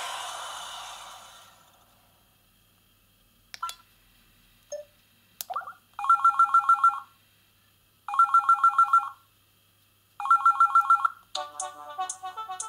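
Samsung SGH-Z130 mobile phone playing its ringtones through its small speaker. A previous tone fades out, then come a few short beeps and clicks. Next is an old-telephone-style trilling ring in three one-second bursts about two seconds apart, and near the end a new electronic melody starts.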